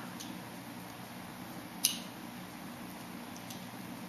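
A single sharp snip of hand scissors, a crisp click about two seconds in, over a steady low hum.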